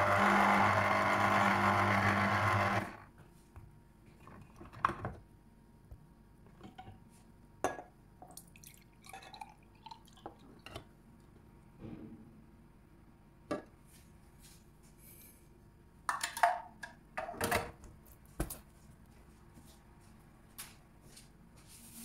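Electric citrus juicer's motor running steadily as an orange half is pressed onto the reamer, cutting off about three seconds in. After that, quiet clicks and knocks of the plastic juicer parts being handled, and juice dripping from the spout, with a few louder knocks near the end.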